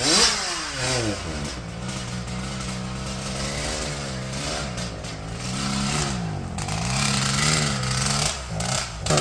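Two-stroke race chainsaw running unloaded, revving down in the first second, then holding a steady run that wavers up and down. The saw is being run to burn the race fuel out of it, which is done so the fuel doesn't eat the rubber parts.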